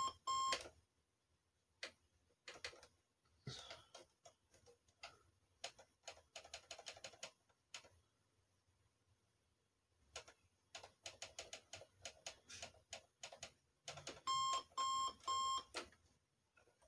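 Sony Dream Machine ICF-C122 clock radio's alarm beeping, about two to three beeps a second, cutting off under a second in. A scattered run of faint small clicks follows as the clock's buttons are pressed. The alarm beeps briefly again, three or four beeps, about two-thirds of the way through, then more faint clicks.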